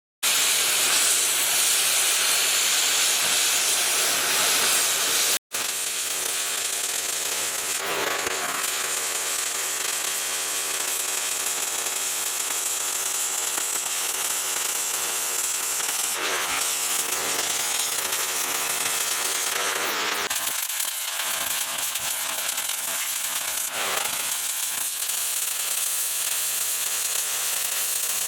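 Steady, loud hiss with a faint hum under it, cut off abruptly about five seconds in and then carrying on a little quieter.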